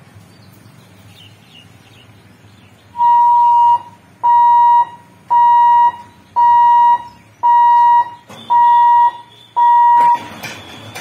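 Level crossing warning buzzer sounding seven even beeps, about one a second, each a steady mid-pitched tone, while the boom barriers come down. A faint rain hiss runs underneath.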